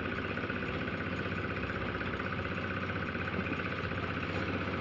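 An engine running steadily: an even drone with a fast flutter that does not change.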